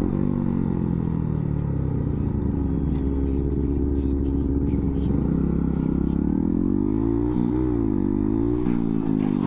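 Dirt bike's engine heard from the rider's helmet while riding. The revs drop over the first couple of seconds as the throttle is eased, hold steady, then climb again about five seconds in, rising and falling several times near the end.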